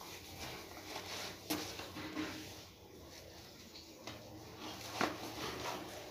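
Sneakers being pulled on and laced up by hand: soft rustling of shoe, laces and clothing, with two sharp knocks, about a second and a half in and again near the end.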